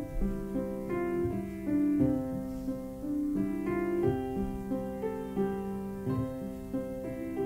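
Piano playing slow, held chords, a new chord struck about every half second to second.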